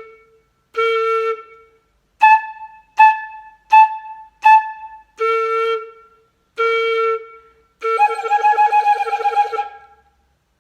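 A flute head joint played on its own in a rhythm. Two longer low notes are played with the hand closing the open end, then four short notes about twice as high with the end open, then two more low notes. It ends on a long note whose pitch wavers quickly as the hand moves over the end.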